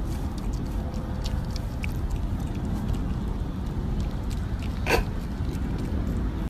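A raccoon eating, with faint clicks over a steady low rumble and one short, sharp sound about five seconds in.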